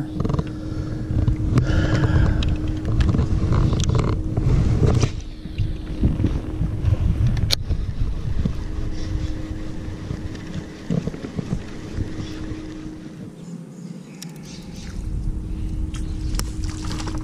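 Low rumble of wind and water around a kayak, with a baitcasting reel being cranked through a retrieve; one sharp click about seven and a half seconds in.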